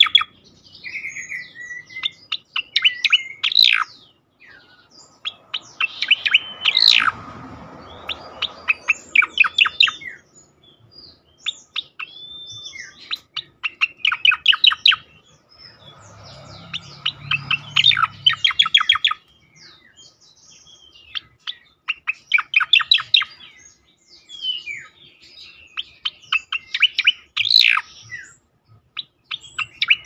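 Striated grassbird (cica koreng) singing: phrases of rapid chattering trills mixed with rising and falling whistles, repeated every few seconds with short pauses between.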